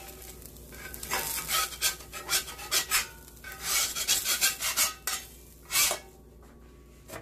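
Metal spatula scraping against a Lodge cast-iron skillet in a series of rasping strokes, working under a dosa to loosen it from the pan. The scraping stops about six seconds in.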